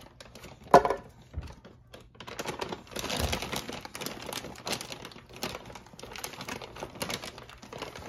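Plastic bag crinkling and rustling in quick crackly bursts as a small child's hand rummages inside it. A single sharp knock sounds just under a second in.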